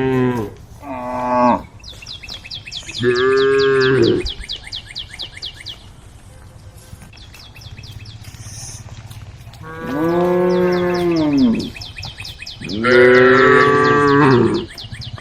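Cows mooing, with about four long lowing calls a few seconds apart, one of them shorter and higher near the start. A high, fast, evenly pulsing chirp runs beneath some of the calls.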